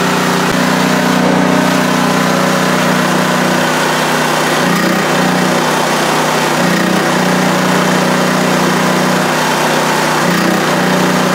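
Pro Force 2500-watt portable generator's small gasoline engine running steadily under a 1500-watt space-heater load, its pitch wavering briefly a few times. It is holding the load well after a carburetor clean.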